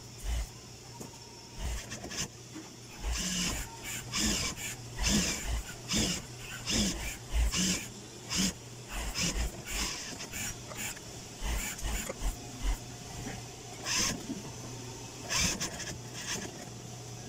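Industrial lockstitch sewing machine stitching binding tape onto the edge of a woven plastic mat, running in many short, irregular bursts over a steady motor hum.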